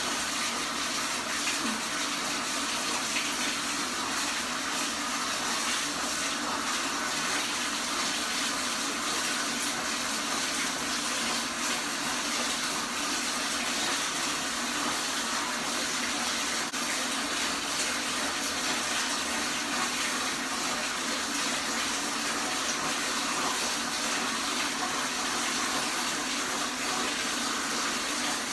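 Water running steadily from a tap, an even hiss with no break.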